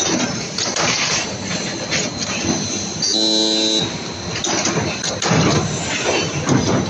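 Automatic steel chain making and welding machine running, with continuous metallic clattering and knocking from its link feeding and bending mechanism. About three seconds in, an electric buzz lasting under a second sounds as the copper electrodes resistance-weld a link.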